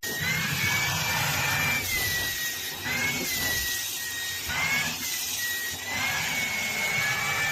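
A small motor-driven appliance running: a steady rushing noise with a high whine that dips and rises slightly in pitch several times.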